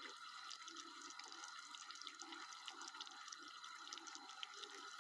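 Sugar syrup boiling hard in a small ladle, faint quick bubbling with many little pops. This is the sugar-and-water mixture cooking down into burnt sugar, just before it starts to change colour.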